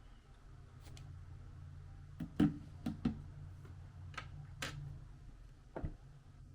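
A handful of short sharp clicks and taps, about seven in all, the loudest about two and a half seconds in, over a low steady hum.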